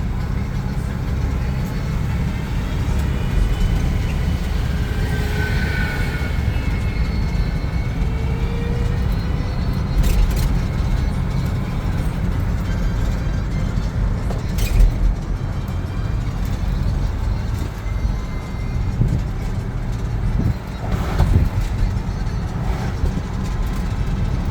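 Steady low rumble of a vehicle on the move, with a few sharp knocks along the way.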